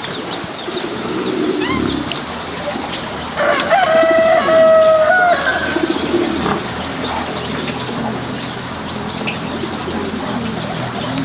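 A rooster crowing once: a single long call starting about three and a half seconds in.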